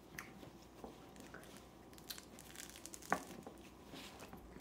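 Faint wet tearing and crackling of a citrus wedge being pulled apart by hand, with small clicks and one sharper click about three seconds in.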